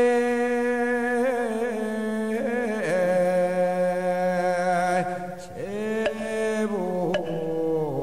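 A Korean Buddhist monk's solo chanting voice, holding long drawn-out notes that waver and then slide down in pitch, with a short break about five and a half seconds in. A single light tap sounds about seven seconds in.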